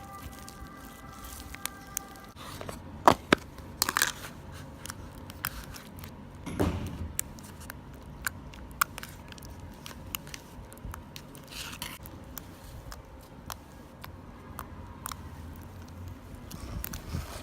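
Slime being squeezed and pulled by hand, making a run of sharp pops, crackles and sticky tearing sounds, the loudest pops about three and four seconds in.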